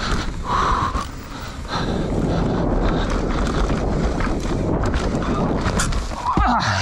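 Wind rushing over a helmet-mounted camera while a mountain bike rattles over a rough trail, a steady noisy rumble broken by many sharp knocks.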